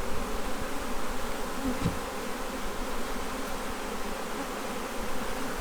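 Honey bees buzzing steadily around an opened hive, with a short rise and fall in pitch about two seconds in.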